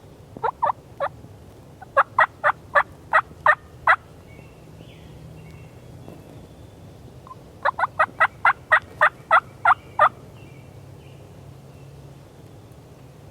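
Turkey yelping: a short run of three yelps, then a run of about seven, then one of about eleven, roughly three notes a second.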